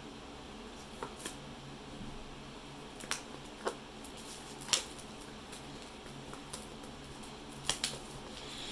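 Magic: The Gathering cards being handled and flicked through, with several short sharp snaps at irregular intervals over a low steady hum.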